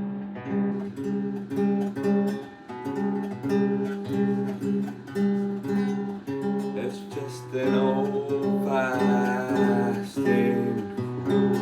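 Music: an acoustic guitar strummed in a steady repeating chord pattern, with a wavering melodic line over it for a couple of seconds near the middle.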